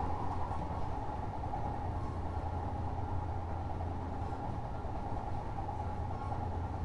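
Odakyu 8000 series electric train, motor car DeHa 8116 with IGBT-VVVF traction equipment, running at a steady speed. It gives a steady low rumble with a constant mid-pitched hum that neither rises nor falls.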